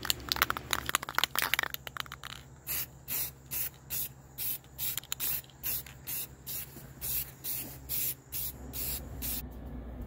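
Aerosol spray-paint can fired in short, evenly spaced puffs, about two or three a second, each a brief hiss. Before them, in the first two seconds, comes a denser, quicker flurry of hissing spurts.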